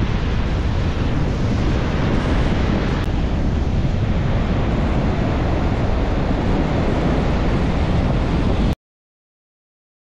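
Wind buffeting the microphone over the wash of ocean surf breaking on the beach, a loud steady rumble that cuts off suddenly near the end.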